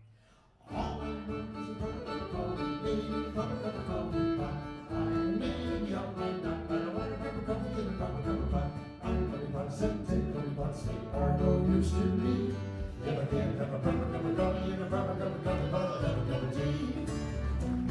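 Live acoustic band starting a song about a second in: acoustic guitar, bass and fiddle playing an upbeat bluegrass-style tune together.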